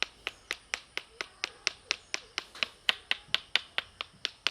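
The dust filter of a cordless handheld car vacuum cleaner being knocked against a surface over and over to shake out fine dust: sharp light taps at an even pace, about four a second.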